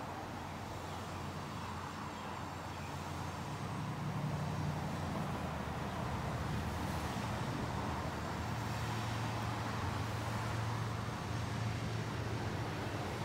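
Diesel freight locomotives approaching, a low engine drone that grows louder about four seconds in and then holds steady.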